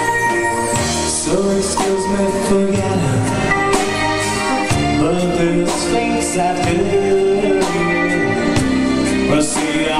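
Stage-show music: a live band playing, with a singer over it and drum strikes marking the beat.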